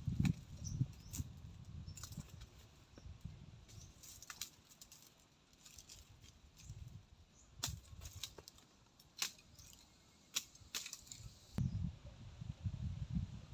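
Scattered sharp clicks and knocks at irregular intervals, about seven in all, over a low rustle. Bursts of low rumble from wind buffeting the microphone come at the start and over the last two seconds.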